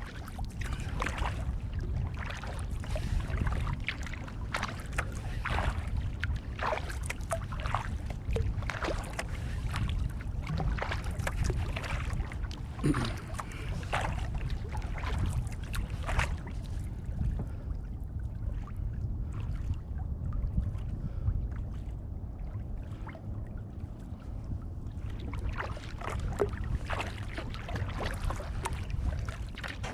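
Kayak paddle blades dipping and splashing in calm water, stroke after stroke over a steady low rumble. The strokes stop for several seconds past the middle, then start again near the end.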